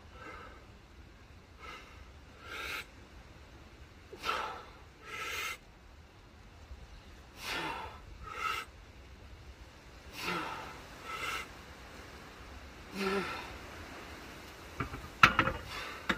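A man breathing hard between efforts at the bench press: deep breaths in pairs, in then out about a second apart, a pair roughly every three seconds. Near the end comes a sharp knock, the loudest sound, with a lighter one just after.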